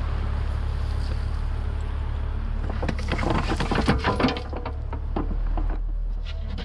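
Mini excavator's diesel engine running steadily, with a burst of clattering and scraping from the bucket working soil about halfway through.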